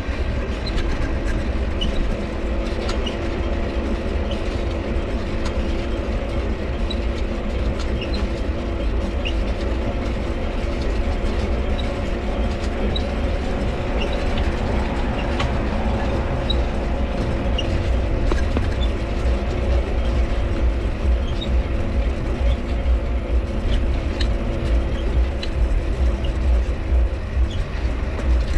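Mifa folding bike being ridden: the dynamo hums steadily over the rumble and rattle of the rolling bike, with repeated short high squeaks from the pedal cranks.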